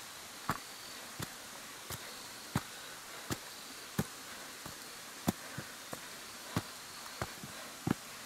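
Footsteps of one person climbing stone steps strewn with dry leaves, an even step about every two-thirds of a second. A faint high insect trill runs behind them.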